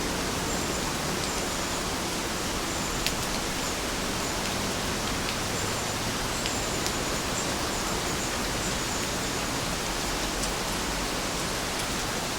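Steady rain falling, an even hiss with a few sharp drops ticking now and then.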